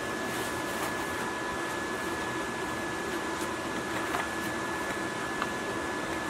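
A steady mechanical hum with a faint constant whine, with a metal tool scraping now and then at crusted grime on a rusty diesel engine casting.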